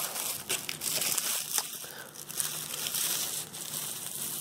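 Plastic packaging crinkling and rustling as it is handled and pulled out of a cardboard box, with a few light clicks.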